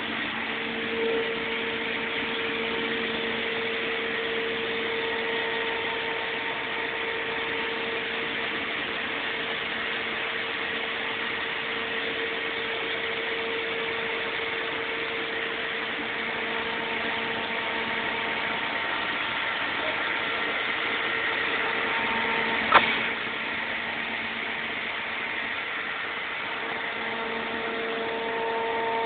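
Sullair 16-100 portable air compressor running steadily, with a steady hum and tone, and one sharp click or knock about three-quarters of the way through.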